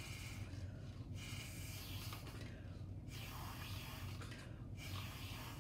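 Air blown steadily through a bent drinking straw to keep a ping pong ball floating above a bottle cap: a faint airy hiss in about four long puffs, each broken off by a short pause for breath. A low steady hum runs underneath.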